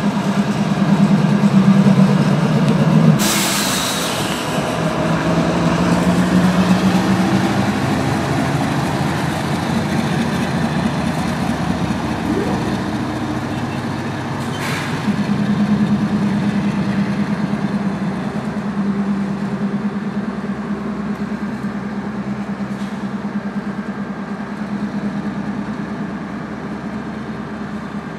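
Several CSX diesel-electric locomotives running as they pass, a steady low engine drone that shifts in pitch a few times and slowly fades near the end. A short sharp hiss comes about three seconds in and a shorter one near halfway.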